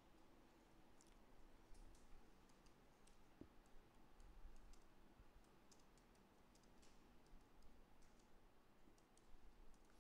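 Faint, irregular clicks of keystrokes on a laptop keyboard.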